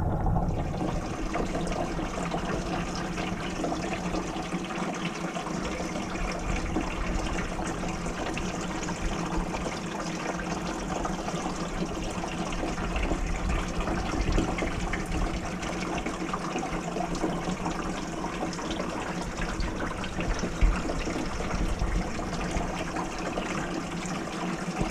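Water running steadily through a vertical-flow trout hatchery incubator, with a steady low hum underneath.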